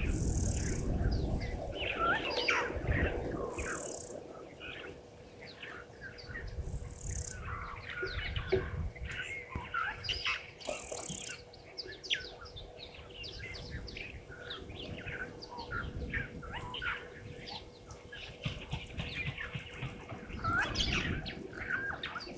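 Many birds chirping, whistling and calling at once in bushveld around a waterhole, thick and continuous, with gusts of wind rumbling on the microphone now and then. There are a few brief high hisses, and a faint steady hum underneath.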